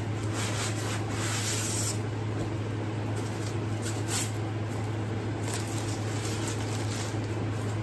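Packaging being handled: a cardboard sleeve sliding off, then foam sheeting and plastic wrap rubbing and crinkling, in several irregular bursts, the loudest about a second in, over a steady low hum.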